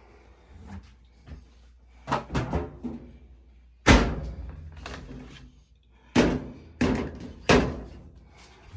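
A series of hard thumps and knocks, the loudest about four seconds in and three more in quick succession between six and eight seconds.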